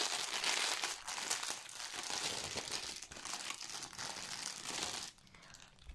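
Clear plastic packaging crinkling and rustling as hands dig through a cellophane-wrapped diamond painting kit; it stops about five seconds in.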